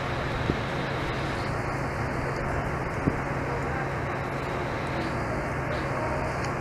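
Steady background rumble of road traffic with a steady low hum, broken by two short knocks, about half a second and three seconds in.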